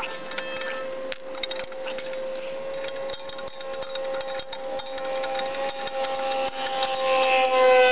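Ratchet wrench clicking in quick, irregular strokes as the bolts holding the engine's muffler heat shield are backed out. Under it runs a steady background tone that begins to slide down in pitch near the end.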